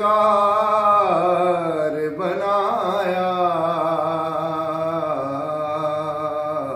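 A man singing a naat unaccompanied, drawing one long melismatic phrase out on a single breath, its pitch wavering and turning about a second in before it settles into a held note.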